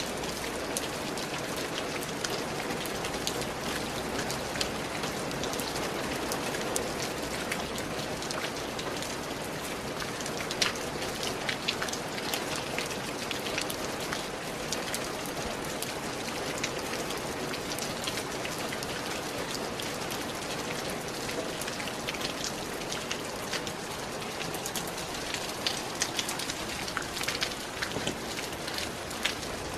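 Steady rain falling on a surface, with individual drops ticking sharply over an even hiss of rainfall.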